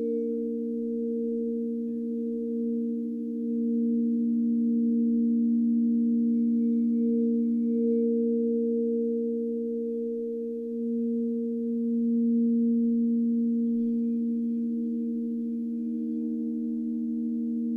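Crystal singing bowls ringing together in steady, overlapping held tones as a mallet is circled around a bowl's rim, the tones slowly wavering and swelling.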